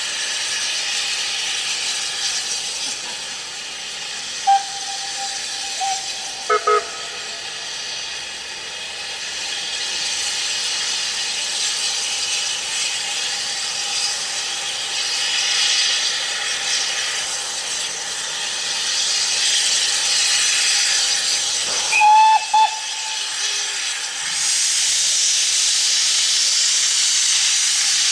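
Steam locomotive hissing steadily, with short whistle toots: a single one about 4 seconds in, a quick double toot about 6 seconds in, and a louder double toot about 22 seconds in. About 24 seconds in the hiss of escaping steam becomes louder.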